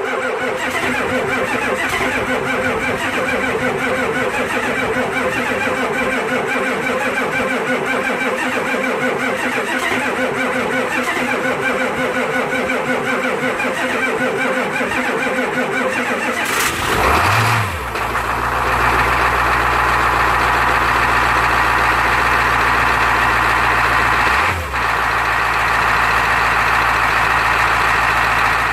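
Truck engine idling after a cold start in about 8-degree cold. About 17 seconds in the sound changes: a deep steady hum comes in under it and it gets a little louder. Near 25 seconds it dips briefly, then steadies.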